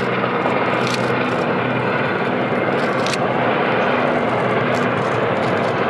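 Three Aérospatiale Gazelle helicopters flying over in formation, each with a single Turbomeca Astazou turbine engine: a steady rush of turbine and rotor noise with a low hum running under it.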